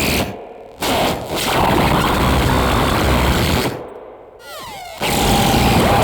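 Electroacoustic noise music: dense, loud walls of noise that cut off and return abruptly, with a tangle of curving, sliding tones about four and a half seconds in, then a wall of noise returning with a steady held tone.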